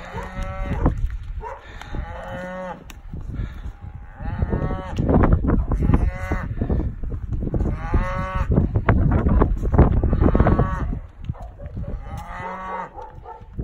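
Cattle mooing over and over, about seven calls of roughly a second each. Heavy low noise on the microphone through the middle.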